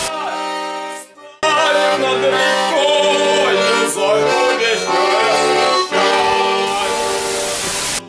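Accordion music: a held chord, a brief break about a second in, then a lively melody over sustained chords.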